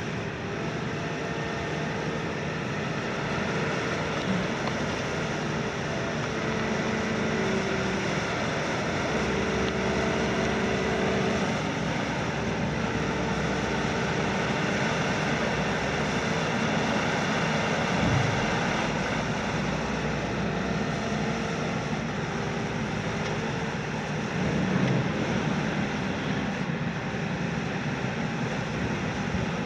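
Long-front demolition excavator (KMC 380 S-6 on a Hitachi base, 42 tonnes, 210 kW) running steadily, its diesel engine and hydraulics droning, with humming tones that come and go as the boom works. A single thump about two-thirds of the way through and a smaller knock a little later.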